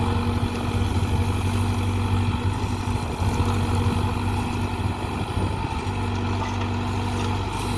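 Tractor diesel engine running steadily, powering a backhoe loader attachment.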